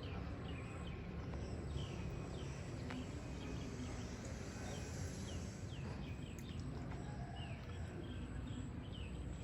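Small birds chirping in short, falling chirps, several times a second, over a steady low background rumble.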